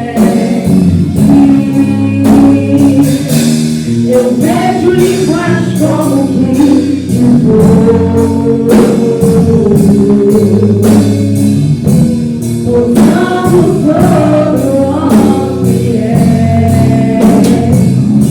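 Gospel worship music: voices singing a slow melody over sustained keyboard and bass with a steady beat.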